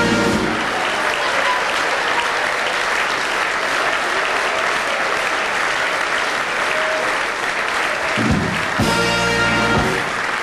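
Carnival hall audience applauding steadily. A brass band plays short sustained chords at the very start and again near the end.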